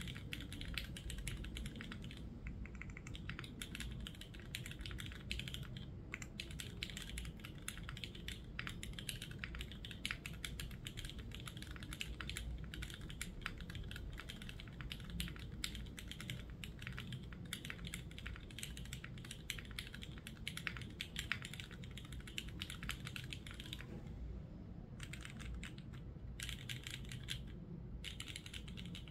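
Steady fast typing on a Neo65 mechanical keyboard with a carbon-fibre plate, no foam, Cherry Hyperglide Black linear switches and PBT keycaps: a dense stream of key clacks, with a couple of short pauses near the end.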